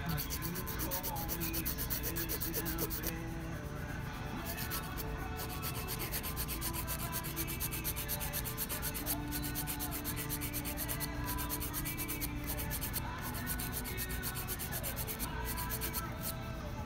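Hand nail file rasping back and forth over fingernails in quick, steady strokes as the nails are shaped.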